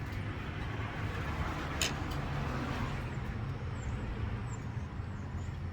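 Steady low hum of a running vehicle engine, with a single sharp click about two seconds in.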